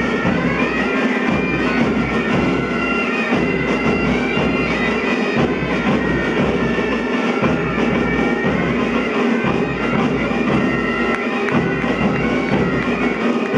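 A pipe band's bagpipes playing a tune over their steady drone.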